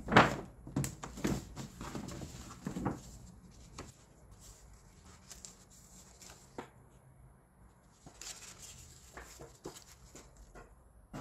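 Stiff paper shopping bag and paper envelope rustling and crinkling as they are handled. The handling is loudest and busiest in the first three seconds, then thins to scattered quieter rustles.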